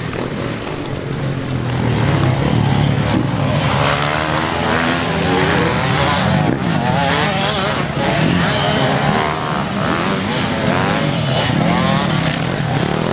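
Several dirt bike engines revving hard, their pitch rising and falling as the riders work the throttle, getting louder about two seconds in.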